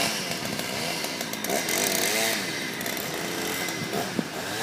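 Old Husqvarna two-stroke chainsaw running, its engine pitch rising and falling repeatedly as it is revved.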